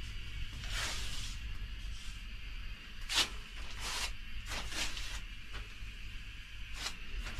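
Steady low hum of a running heater, with about eight short, hissy rustles and scrapes scattered through it.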